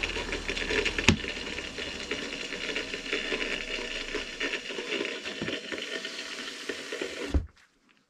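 Brushless washing machine motor running, then a sharp click about a second in as its power is switched off; the low mains hum stops and the motor keeps whirring and rattling as it coasts, until the sound cuts off suddenly near the end.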